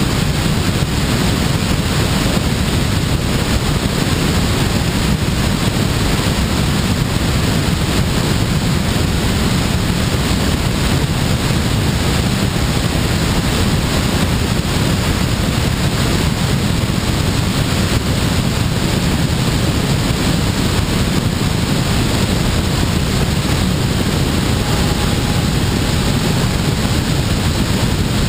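Steady rush of air over the microphone of a camera mounted on a glider's wing in flight: an even, low-heavy wind noise that does not change.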